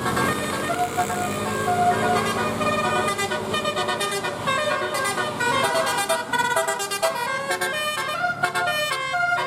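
Indonesian bus 'telolet' multi-tone air horn playing a quick melody: a string of short pitched notes, several at once, with no break.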